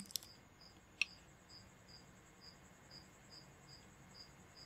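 Near silence: room tone with a faint high chirp repeating about twice a second, and a single soft click about a second in.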